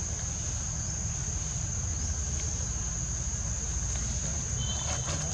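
Steady high-pitched insect drone, like crickets or cicadas, over a low rumble of wind on the microphone.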